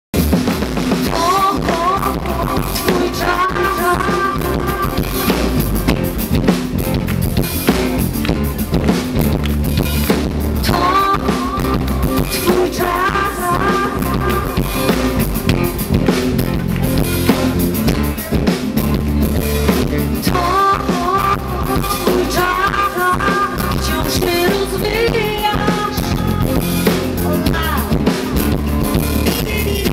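Live pop band playing a song's instrumental opening with drum kit, bass guitar and acoustic guitar. A high, wavering, ornamented wordless vocal melody comes in several phrases over the band.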